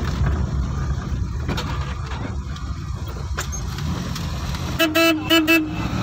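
Engine and road rumble heard from inside a moving vehicle's cabin. Near the end a horn sounds several quick short toots.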